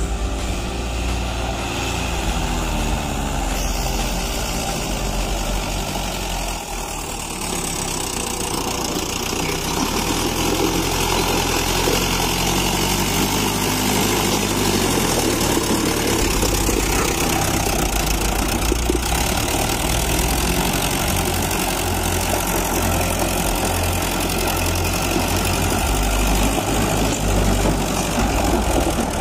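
Diesel farm tractor engine running under load as it pulls a trailer loaded with stone slabs, with the engine pitch shifting now and then.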